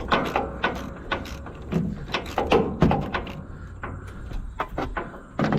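Irregular clicks and knocks of hand tools on metal, a socket and ratchet working a bolt loose on a combine.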